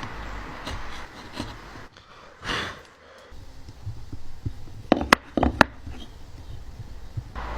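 Woodworking shop sounds: a brief rushing swell, then about five sharp knocks in quick succession a little past halfway.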